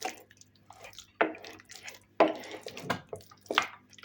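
Wet squelches and soft knocks of a utensil pressing and stirring mashed cooked black beans (njahe) in a pot, a few uneven strokes, the loudest about a second and two seconds in.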